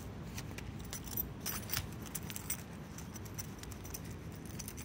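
Light jangling clicks, a cluster of quick ones from about a second in and more near the end, over a steady low rumble.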